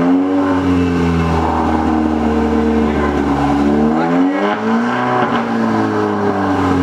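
Car engine revved on the spot with a turbo-whistle insert fitted in the exhaust, held at raised revs and then dipping and picking up again about four seconds in. It is being run to test whether the whistle sounds, which is faint at most.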